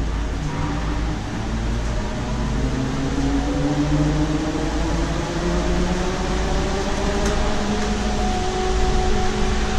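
Inside a 2016 Nova Bus LFSe battery-electric bus, the TM4 electric drive's whine climbs slowly in pitch as the bus gathers speed, over a steady low road rumble.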